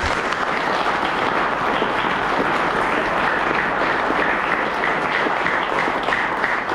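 Audience applauding: a dense, steady round of clapping from a roomful of people.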